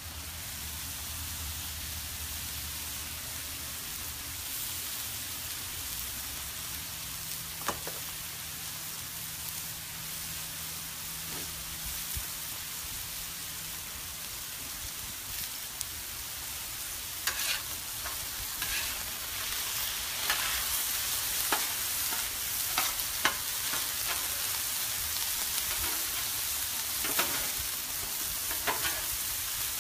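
Chicken pieces, zucchini and squash sizzling steadily on a Blackstone steel flat-top griddle. From about halfway, a metal spatula scrapes and clacks against the griddle top again and again as the food is turned and pushed around.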